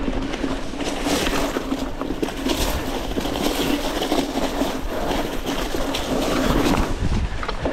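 Wind rushing over the microphone of a mountain bike riding downhill on a dirt singletrack, with the tyres rolling over the dirt and the bike rattling and clicking over bumps.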